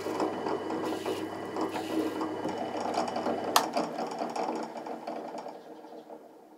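Radial drill press motor running while drilling holes in a thin plate. About three and a half seconds in there is a sharp click, the motor hum stops, and the spindle winds down and fades away.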